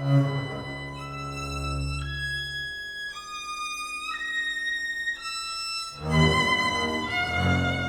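Contemporary chamber ensemble of clarinet, violin, double bass, guitar and piano playing. The violin holds high sustained notes that step from pitch to pitch over a low held note. A new low accented attack comes about six seconds in, and a pitch glides downward near the end.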